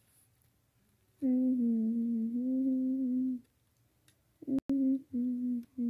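A child humming one long steady note for about two seconds, then three short hums at the same pitch.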